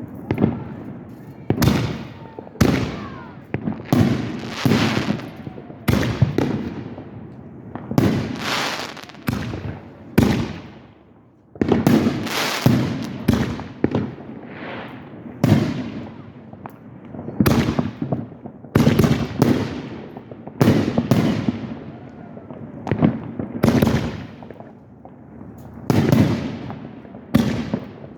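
Aerial fireworks shells bursting in quick succession, a sharp bang about every second or two, each trailing off as it fades.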